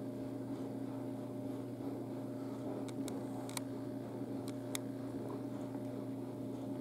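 A steady low electrical hum of room tone, with a few faint soft ticks.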